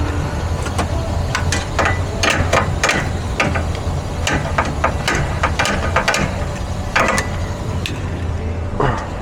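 Irregular sharp metallic clicks and clinks, like tools being handled, over a steady low hum.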